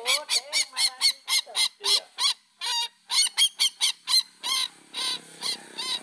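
Papuan sintar (ruak-ruak) rail lure call: a fast run of short, loud, repeated harsh calls, about four to five a second, with a brief break about halfway through.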